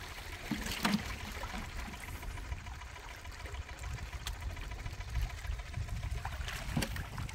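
Small waves lapping and trickling among the rocks at the water's edge, with a steady low rumble and a few faint clicks.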